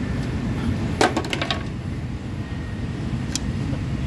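A rear crankshaft oil seal retainer and its white plastic installer sleeve being handled. About a second in there is a quick rattle of clicks and small knocks as the retainer is pushed onto the crankshaft and the sleeve comes out, followed by a couple of faint ticks. A steady low rumble runs underneath.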